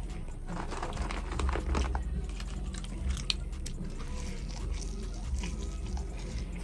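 Close-up chewing and biting of food, a run of small irregular wet and crunchy mouth clicks, over a steady low hum.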